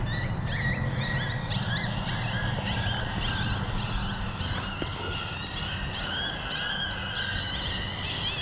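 FoxPro X24 electronic predator caller playing a coyote pup distress sound: a run of short, high, rising-and-falling whines and yips, repeated over and over, over a steady low background rumble.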